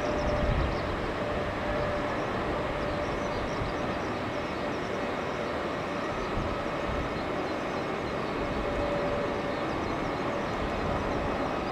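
Distant Boeing 747-8F's four GEnx-2B turbofan engines at takeoff thrust during the takeoff roll: a steady rumble, with a faint tone coming and going.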